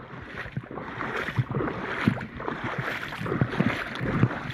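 Shallow creek water splashing and sloshing in many small, irregular splashes as a hooked smallmouth bass is brought in and the angler wades.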